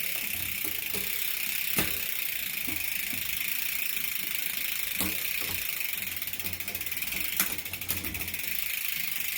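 Mountain bike drivetrain turning over, the chain running on the rear cassette with a steady fine ticking whir and single louder clicks about two, five and seven and a half seconds in. The rear derailleur sits at the biggest cog, where its limit is off and the chain goes too far inward past that cog.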